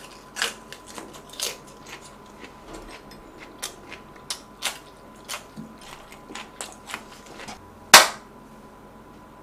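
Close-miked chewing of grilled marinated pork ribs: a string of short mouth clicks, several a second at times. About eight seconds in comes one loud sharp clap.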